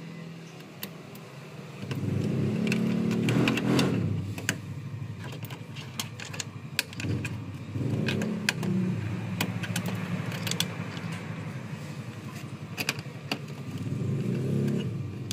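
Sharp plastic clicks and rattles of wiring-harness connectors being handled and plugged on a copier's controller board, over a low engine rumble that swells and fades three times.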